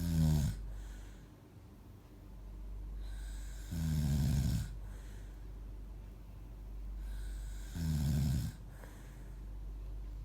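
Snoring: three droning, pitched snores about four seconds apart, each lasting about a second and led in by a breathy rush, over a steady low hum.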